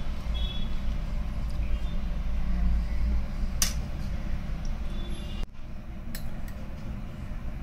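Steady low background rumble, with a metal spoon clinking sharply against a glass about three and a half seconds in as ice cream is spooned onto a falooda, and a few fainter clicks later. The rumble drops abruptly about five and a half seconds in.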